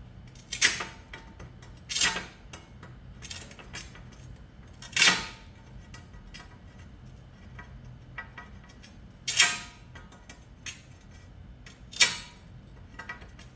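Hand tile nippers biting small pieces off the end of a porcelain tile: about six sharp cracks and snaps at uneven intervals as the tile chips break away.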